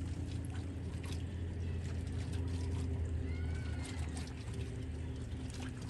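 A steady low motor hum, with a faint short whistle-like chirp about three seconds in.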